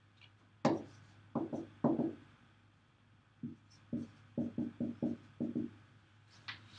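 Dry-erase marker writing on a whiteboard: a series of short strokes and taps against the board, a few spaced out in the first half and a quicker run of about eight in the second half.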